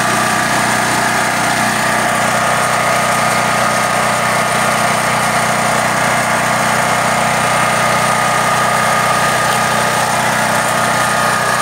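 Firman H07552 generator's engine running steadily on natural gas through a conversion kit's regulator, at an even, unchanging speed after the gas flow screw has been set.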